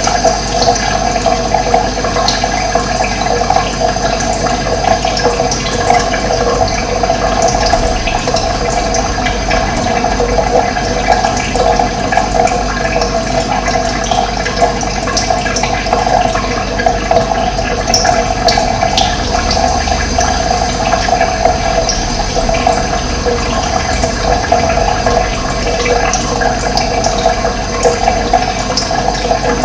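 Running water: a steady, continuous rush of flowing water.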